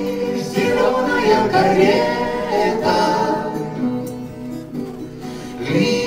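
Live acoustic folk song: acoustic guitars playing under a small group of voices singing together. The singing is strongest in the first half, drops back about halfway, and swells again near the end.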